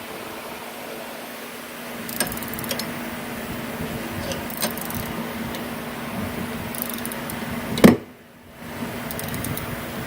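Hand tools working on the front shock's mount: scattered metallic clicks and clinks of a wrench or ratchet over a steady shop hum, with one loud knock near the end.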